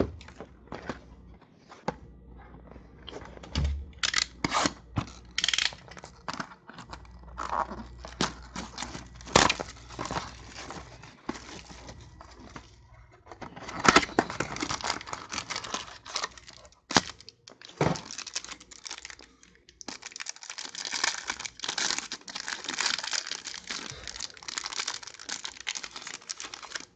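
A trading-card box being opened by hand: wrapping and packaging torn and crinkled, with scattered clicks and handling knocks. Denser stretches of tearing and crinkling come near the middle and through the last third.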